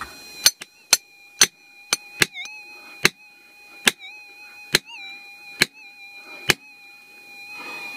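A hand hammer striking a steel chisel driven into bedrock, about ten sharp metallic blows roughly one every 0.8 seconds, breaking out the rock. The blows stop about six and a half seconds in. A faint steady high tone runs underneath.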